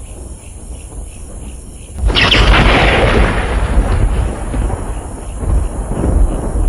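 Thunder: a low rumble, then a sharp thunderclap about two seconds in that rolls on and slowly fades, swelling again near the end.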